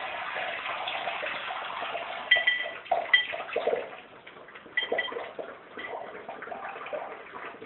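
Water poured from a pitcher into a metal bowl, splashing steadily for about two seconds and then stopping. After that, a crowd of golden retriever puppies laps at the bowl, and it rings with short metallic clinks a few times as they knock it.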